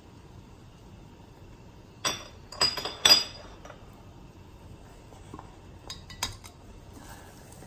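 Kitchen utensils clinking against a cooking pot or dish: three sharp clinks about two to three seconds in, then two fainter ones around six seconds.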